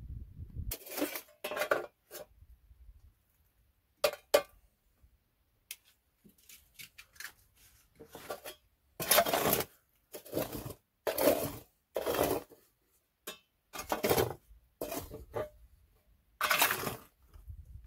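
Household objects being handled: a run of short scraping and clinking strokes with pauses between, about a dozen in all.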